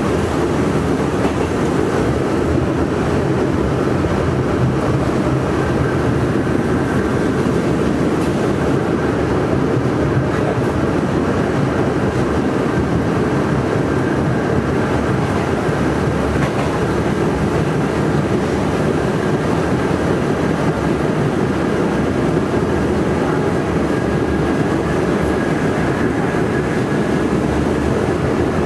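R68 subway car heard from inside, running at speed along the track: a steady rumble of wheels on rail, with a faint steady high whine above it.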